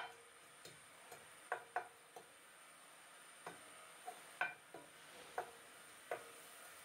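Wooden spatula knocking and scraping against a frying pan while stirring minced garlic in oil: about a dozen light, irregular taps over a faint steady hiss.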